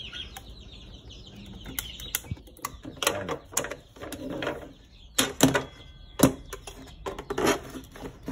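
Clicks, taps and knocks of a cut-open electric can opener's stainless-and-plastic housing being handled and set against a metal table top, irregular, with the loudest knocks between five and six and a half seconds in. A chicken clucks faintly in the background.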